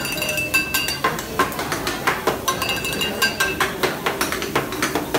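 Metal teppanyaki utensils, a steel spatula and metal shaker, clanking and tapping against each other and the steel hotplate in quick, uneven clinks, with a ringing metallic note between some of the strikes.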